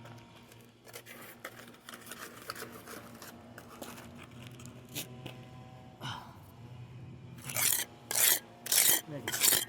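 Scraping and rubbing on fresh concrete during a patch repair: light scratching at first, then from about seven and a half seconds in, loud rasping strokes about two a second.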